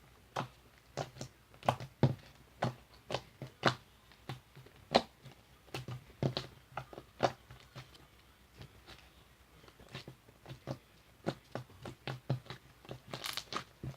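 Slime being squished and poked by hand, giving a string of sharp, irregular clicking pops, about two a second, with a short low thump under each.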